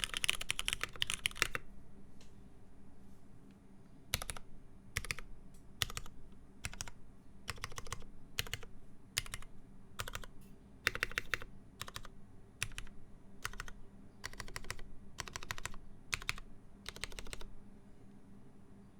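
Mechanical keyboard with lubed, retooled Cherry MX Black linear switches on a full aluminium plate with PBT keycaps, being typed on. A fast run of keystrokes for about the first second and a half, then, after a short pause, slower keystrokes singly and in small groups that stop near the end.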